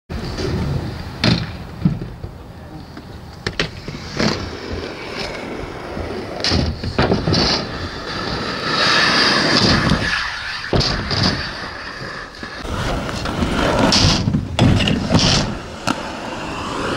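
Skate wheels rolling on asphalt and ramps, a rough rumbling hiss, broken by sharp knocks and clacks of landings every second or two.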